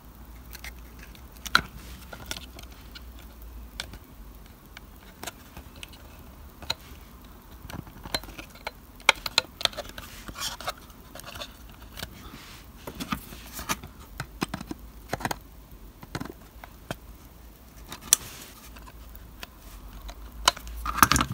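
Small irregular clicks, taps and scrapes of fingers handling a plastic model building and working thin wire downpipes through holes in its walls, with pliers gripping the wire near the end.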